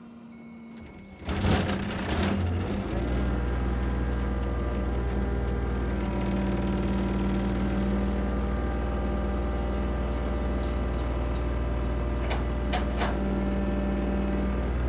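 An engine starts about a second in, then runs steadily at idle. A couple of short clicks or rattles come near the end.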